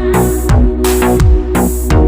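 Electronic background music with a steady beat and deep bass notes that slide down in pitch.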